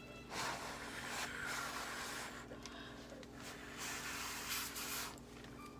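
Someone eating a hot, crispy scallion pancake: soft chewing and breathing noise in several short stretches.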